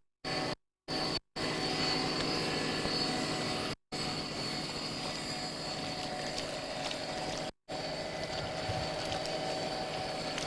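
Steady whine of a radio-controlled model rescue cruiser's motor, running at constant speed with no change in pitch. The sound cuts out to total silence five times for a split second: dropouts in the recording.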